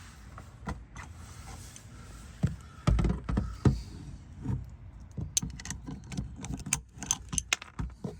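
Metal hand tools clinking and scraping in a string of sharp clicks, with a few dull thumps about three seconds in: a wrench being handled and fitted to the car's oil drain plug.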